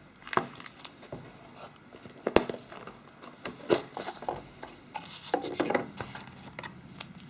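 A phone's retail box and packaging being handled and opened: cardboard and plastic rubbing and sliding, with a few sharp clicks and taps.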